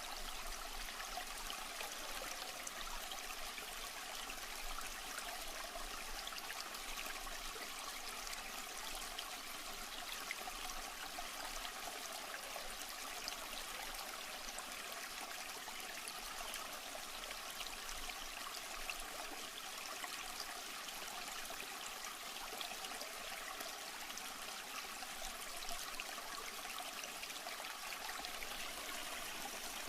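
Aquarium water trickling steadily, an even running-water sound with no breaks.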